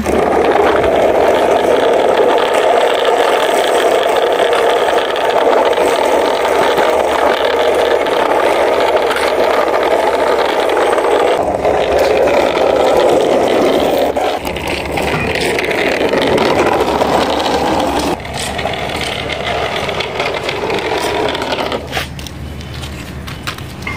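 Plastic toy articulated bus pushed by hand along a concrete wall top, its wheels rolling with a steady rattling scrape that eases off near the end.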